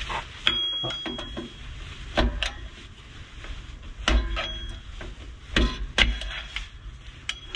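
Several separate metallic knocks and clinks, a few with a short high ring, from tools and rear drum-brake parts being handled.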